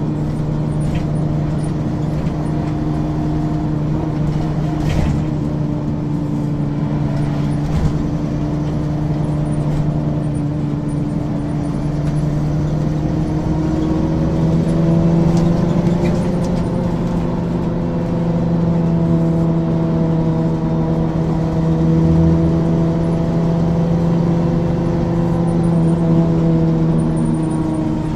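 Engine of a 1994 Ikarus 435 articulated bus with a ZF automatic gearbox, running under way with a steady drone. Its pitch rises a little about halfway through, then wavers gently, with a few faint knocks early on.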